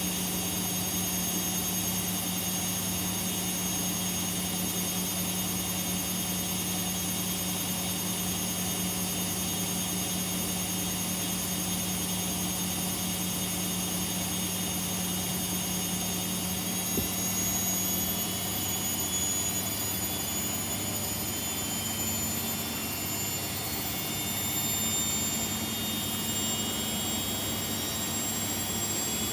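Washing machines on a high-speed spin cycle: a steady motor hum with high whining tones. About seventeen seconds in, a click, and then the whine and hum step up in pitch as a drum speeds up.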